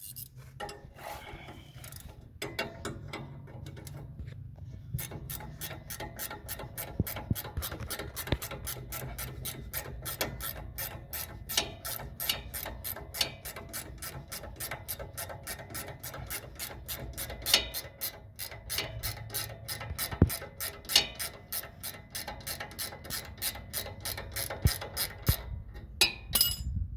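Hand ratchet clicking steadily, about three clicks a second, as its handle is swung back and forth to turn a nut.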